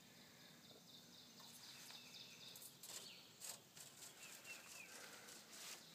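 Near silence: faint outdoor ambience with a few soft clicks, and a few faint high chirps about two-thirds of the way through.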